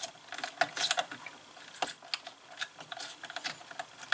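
Hands handling wires and small plastic terminal connectors on a control board: irregular light clicks and rustles, with one sharper click about two seconds in.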